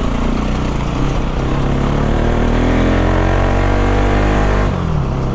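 Bajaj Pulsar NS200's single-cylinder engine through an Akrapovic aftermarket exhaust fitted with a dB killer, accelerating with a steadily rising pitch for about four and a half seconds. The pitch then drops suddenly near the end.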